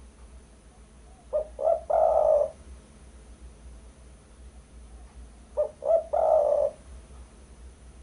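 Spotted dove (derkuku) cooing twice, about four seconds apart. Each coo is two short notes followed by one longer, drawn-out note.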